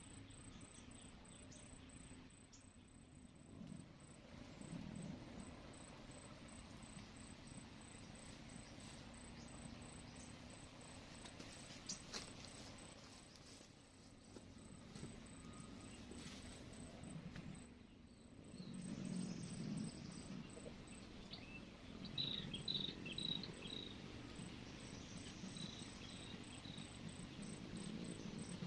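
A cricket trilling steadily in an even pulsed rhythm, with a few short, high bird chirps about three-quarters of the way through and an intermittent low rumble.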